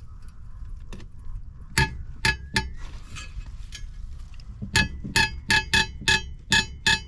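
A hammer striking metal about ten times with a ringing clang: three blows about two seconds in, then a quicker run of about seven from nearly five seconds in. The blows are driving the propeller nut tight on the shaft, with a bar held against it.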